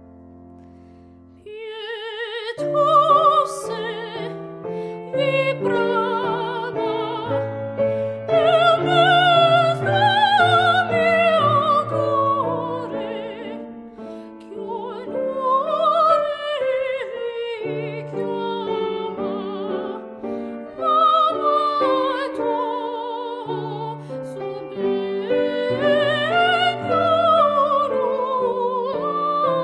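Woman singing classical art song in an operatic style with wide vibrato, accompanied by a grand piano. The piano plays alone at first and the voice comes in about two seconds in, carrying long sustained phrases.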